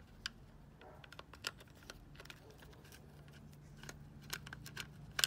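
Screwdriver turning out the Phillips screws on an aluminium EGR venturi pipe housing: faint, scattered metallic clicks and scrapes as the bit works in the screw heads.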